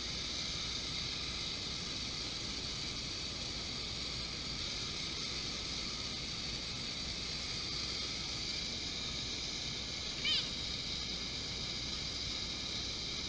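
Jet ski engine running steadily at high revs, driving water up the hose to a flyboard, heard from on board the craft. One brief high-pitched call sounds about ten seconds in.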